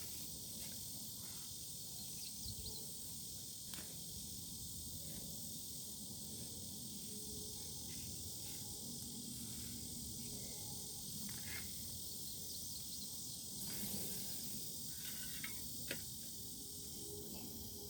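Steady high-pitched outdoor insect drone over low wind rumble, with a few faint clicks and scrapes scattered through.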